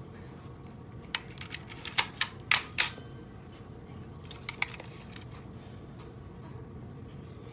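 A Nikon F3 35mm SLR film camera being worked by hand: a quick run of sharp mechanical clicks and snaps, loudest in the middle, then two more clicks a couple of seconds later.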